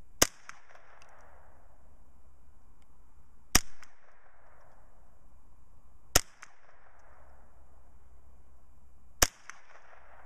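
Ruger 10/22 semi-automatic .22 LR carbine firing four single shots, roughly three seconds apart, each a sharp crack followed by a short echo.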